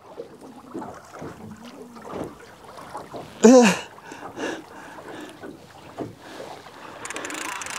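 Water lapping at a small boat's hull, with faint clicks of rod and reel handling while a hooked fish is played. About three and a half seconds in comes a short voiced exclamation, and near the end a steady hiss rises.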